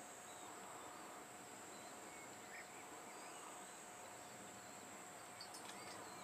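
Faint outdoor ambience: an even hiss with a steady high whine, a few faint distant bird chirps, and a couple of soft clicks near the end.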